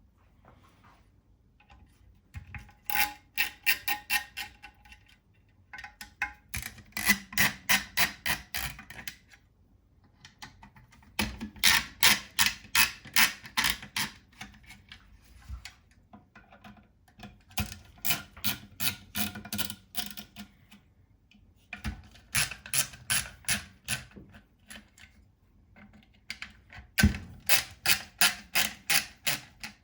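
Ratcheting T25 Torx driver clicking in six separate spells of rapid clicks, loosening the SCAR 15P's barrel screws, with one sharper knock near the end.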